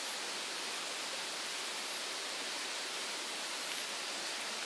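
Steady night-time summer forest ambience: an even hiss with faint, high-pitched insect trills repeating every second or so.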